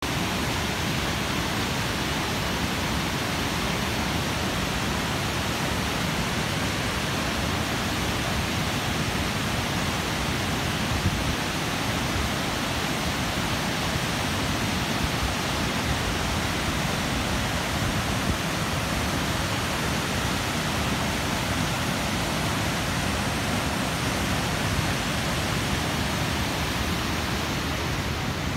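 Water pouring over a curved concrete dam spillway: a steady, even rush of falling water.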